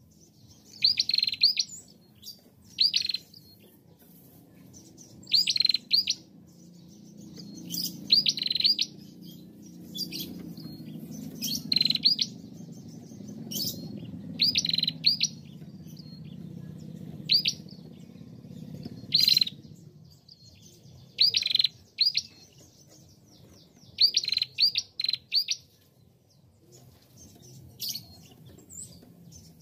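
Female ashy tailorbird calling: quick bursts of two to four sharp, high chirps, repeated every second or two, with a short break near the end.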